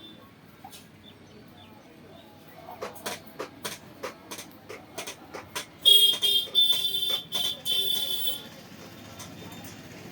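A blacksmith's hammer striking iron on the anvil in a quick run of sharp knocks, about four a second. Near the middle a louder, sustained high-pitched sound with noise follows for about two seconds.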